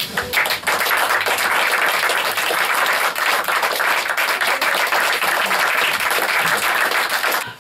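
Small audience applauding, a dense patter of hand claps that builds within the first second, holds steady and cuts off abruptly near the end.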